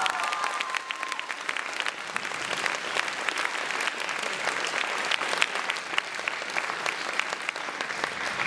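Theatre audience applauding, a dense patter of clapping, loudest at first and then steady. The last held sung note fades away under it in the first second.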